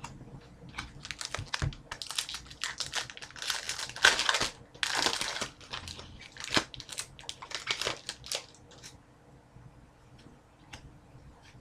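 Foil trading-card pack wrapper crinkling and tearing as a pack of Upper Deck hockey cards is ripped open, in a dense rustle that peaks about four to five seconds in and then dies away to a few light crackles.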